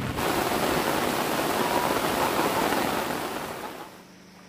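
Heavy rain pouring onto a river's surface, a dense, steady hiss that fades out just before the end.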